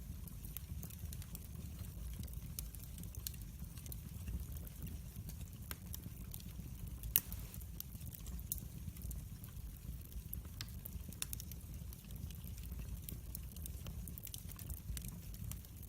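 Log fire burning in a fireplace: a steady low rumble of the flames with frequent scattered crackles and pops, one sharper pop about seven seconds in.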